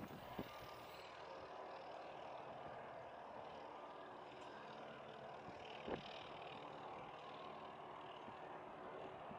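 Distant Cessna Citation X's turbofan engines running at low power as the jet turns onto the runway for takeoff, a faint steady whine and rush. There is one short knock about six seconds in.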